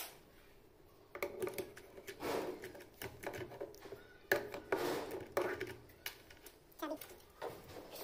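Metal clicks and knocks as the parts of a knob door lock are handled and pressed onto the mounting plate on the door, with short voice-like sounds in the background.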